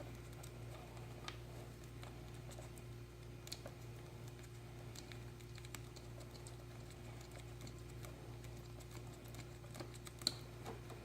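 Light, scattered clicks and taps of small metal parts handled by hand: the nut being threaded onto the pivot bolt of a motorcycle clutch lever. There is one sharper click near the end, over a steady low hum.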